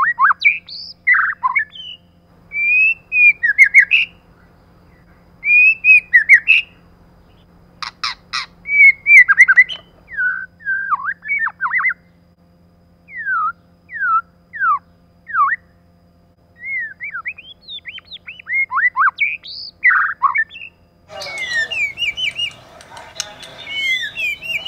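White-rumped shama singing in short phrases of clear, sliding whistles with pauses between them, with a few harsh clicking notes about eight seconds in. Near the end a denser chatter of overlapping calls joins in.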